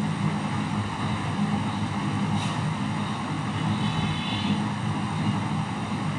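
Steady low mechanical hum with a noisy rush behind it, even and unbroken throughout.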